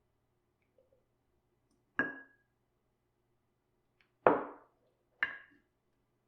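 Three sharp knocks with a brief ringing tone, hard objects striking one another in kitchen work; the middle knock is the loudest.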